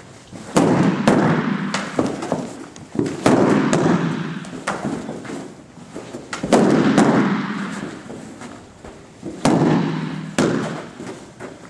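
A collapsible baton striking a padded strike shield: a series of hard, smacking hits a second to three seconds apart, each trailing off in the room.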